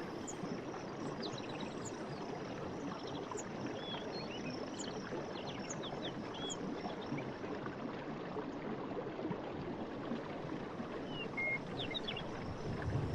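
Forest ambience: a steady rush of flowing water with short, high bird chirps and whistles scattered over it, thickest in the first half and again near the end.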